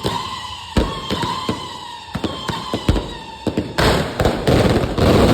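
Fireworks and firecrackers going off in an irregular run of sharp bangs. About four seconds in, a dense crackling burst takes over and is the loudest part.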